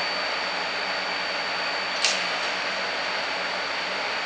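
Steady hiss from the TIG welding setup, with a sharp crack about two seconds in as the arc strikes on 3/8-inch steel, then the arc's steady hiss.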